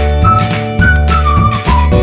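Music: a high melody line of short notes over a steady beat and sustained bass notes.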